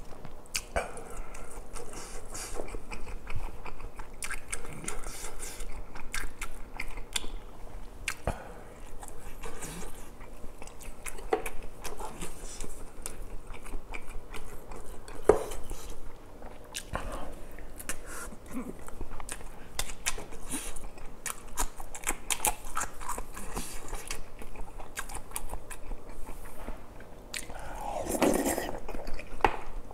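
A person chewing and eating close to the microphone: wet mouth sounds with many small, quick clicks and smacks, and a fuller mouthful sound near the end.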